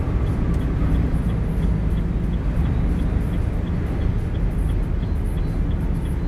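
A semi-truck driving, heard from inside the cab: steady low rumble of the diesel engine and road noise, with a faint light ticking at regular intervals.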